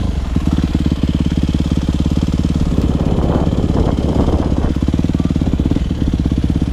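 Yamaha YZ250F dirt bike's four-stroke single-cylinder engine running steadily at low revs as the bike rolls slowly over gravel, with a rougher, noisier patch around the middle.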